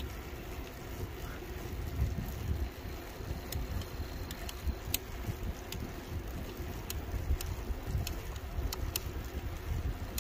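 Wind buffeting the microphone over the low rumble of an electric bike rolling along a paved trail, with a scatter of short, light clicks.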